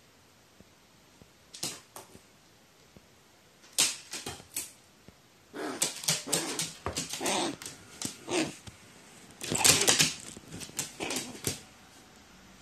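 A crow's short harsh calls and clicks, coming in scattered bursts at first, then in a busier, louder run in the second half.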